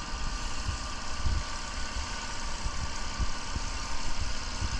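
Mercedes C230 engine idling steadily, with irregular low thuds under a constant hiss.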